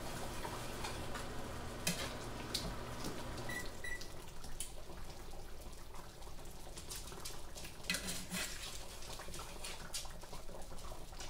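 Thick onion-and-mushroom gravy simmering in a skillet while a spatula stirs it, with scattered soft clicks and taps of the utensil against the pan.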